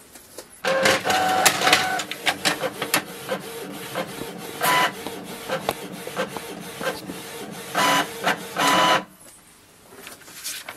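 Canon PIXMA MG2570s inkjet printer printing a page: the paper feed and the print head carriage running with rapid clicking, with a few louder spells of motor noise. It starts about a second in and stops about two seconds before the end.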